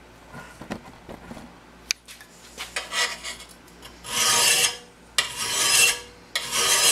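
Flat file rasping along the cutting edge of a steel lawnmower blade held in a vise, sharpening it. A few light scrapes come first, then three long push strokes about a second apart in the second half, filing the dull, nicked edge down to bright metal.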